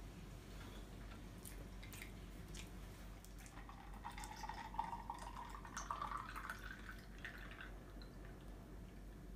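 Chocolate milk poured from two paper cartons into a glass jar, faint, its pitch rising as the jar fills and stopping near the end. A few faint clicks come before the pour starts.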